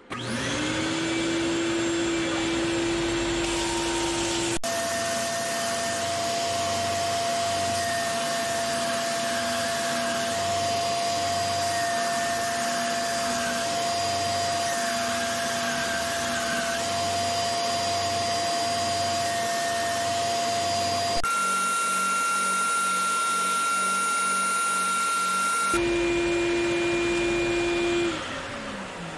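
Benchtop belt sander running with shop-vacuum dust collection while weathered wood boards are sanded. The motor hum spins up at the start and winds down near the end. In between, the pitch jumps higher twice at sudden cuts and drops back at a third.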